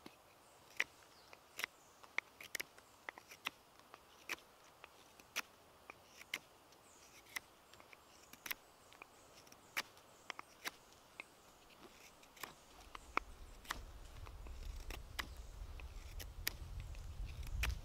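Knife blade carving a wooden stick into a fork: short, crisp clicks as each stroke slices off a shaving, coming irregularly about one to two a second. A low rumble rises under the cuts from about two-thirds of the way through.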